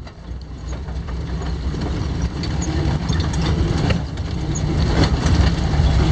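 Vehicle driving on a rough dirt road: a steady low rumble of engine and tyres, with scattered knocks and rattles. It fades in and grows louder over the first couple of seconds.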